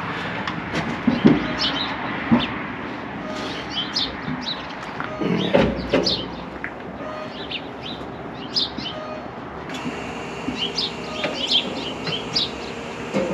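Birds chirping in short, scattered calls, with a low thump about five and a half seconds in.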